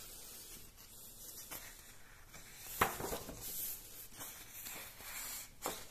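Pages of a book being handled and turned: faint paper rustling, with a sharp tap about three seconds in and smaller ones before and near the end.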